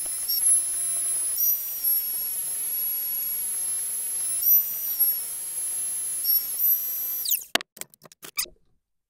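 Belt sander, clamped upside down in a bench vise, running with a steady high whine while the end of a wooden hammer handle is pressed onto the belt; the pitch shifts slightly a few times. About seven seconds in the sander is switched off and winds down with a falling whine, followed by a few clicks.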